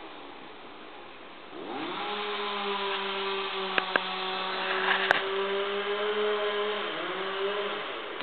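Two-stroke chainsaw idling, then revved up about two seconds in and held at high speed for about five seconds, with a few sharp clicks, before dropping back toward idle near the end.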